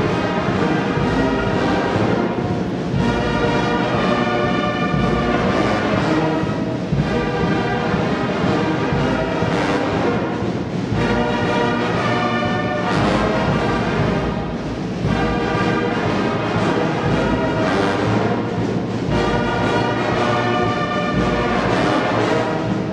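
A brass band plays slow music in phrases a few seconds long, with short breaks between them.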